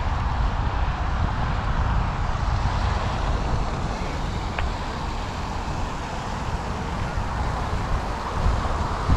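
Wind buffeting the microphone: a steady low rumble with rushing hiss over it.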